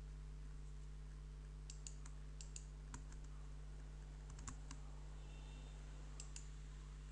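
Sparse clicking at a computer keyboard, a dozen or so light clicks, several in quick pairs, over a steady low electrical hum.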